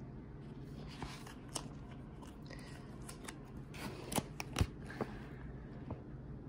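Pages of an NFPA code book being leafed through: paper rustling with scattered sharp flicks and clicks, the loudest a little after the middle.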